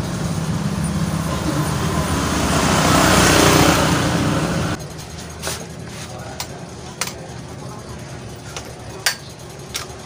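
A motor vehicle engine runs close by with a steady low hum, growing louder to a peak and then cutting off suddenly about five seconds in. After that come about six sharp plastic-and-metal clicks and knocks from handling a bicycle repair stand's clamp head.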